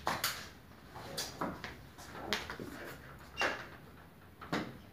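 About seven scattered knocks and clicks from hands handling the fan and housing of a Daikin VRV ceiling cassette indoor unit, opened up for service.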